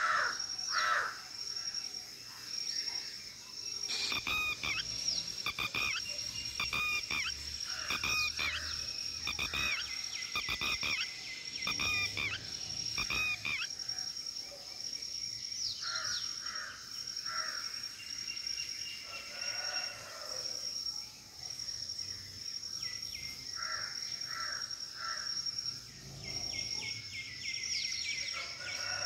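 Red-wattled lapwings calling in several runs of sharp, quickly repeated notes, over the steady high-pitched buzz of insects.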